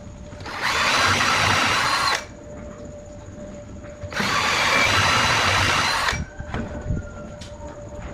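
Power tool run in two bursts of about two seconds each, the second starting about four seconds in.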